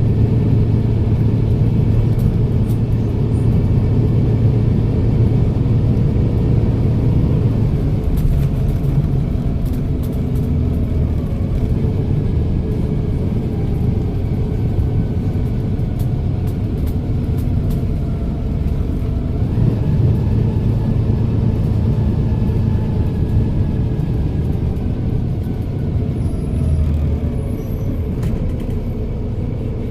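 Volvo B7RLE bus's turbo diesel engine and Voith automatic gearbox running as the bus drives: a steady low drone, with faint high whines that slide down in pitch and, about twenty seconds in, rise again as the bus pulls away.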